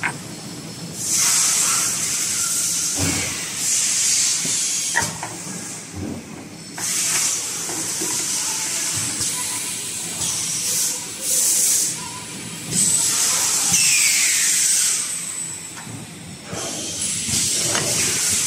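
Compressed air hissing in repeated bursts of one to two seconds at a wax injection die, with a few short knocks between the bursts.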